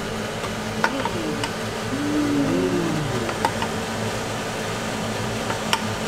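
Steady hum of a kitchen fan running, with a few light clicks and clinks of kitchenware and a short wavering tone about two seconds in.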